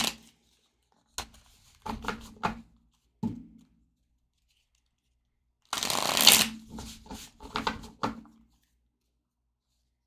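A deck of tarot cards being riffle-shuffled by hand. There are a few short riffles in the first few seconds, then one longer riffle of cards flicking together about six seconds in.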